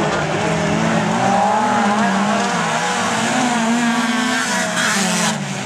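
Several autocross cars' engines running hard on a dirt track, their pitches rising and falling as the drivers accelerate and lift off, with a brief rush of noise near the end.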